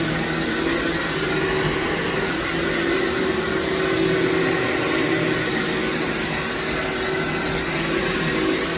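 Vacuum cleaner running steadily over heavily soiled carpet, picking up dry soil: a constant motor hum under an even hiss.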